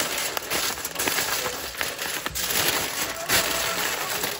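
Aluminium foil crinkling and rustling as hands fold and press it around a paper-wrapped rack of ribs.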